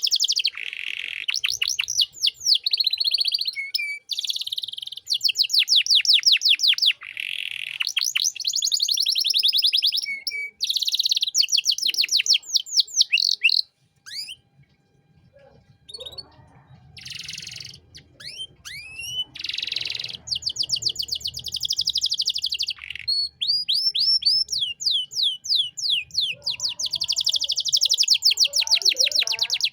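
Domestic canary singing: long, rapid trills and rolling phrases of fast repeated high notes, with a short pause about halfway through.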